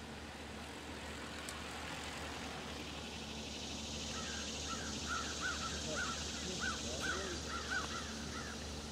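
A bird calling a quick series of about ten short, rising-and-falling notes, starting about four seconds in, over steady background noise.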